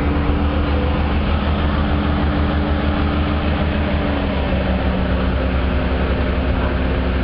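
Whitcomb locomotive's engine running steadily under a low rumble of the moving train, with its note dropping slightly about four seconds in.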